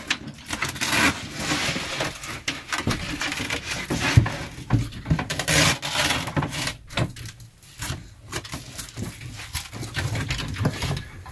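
A wooden crib side being handled and fastened into place with Velcro strips: irregular scraping, rubbing and rasping, with a sharp knock about four seconds in.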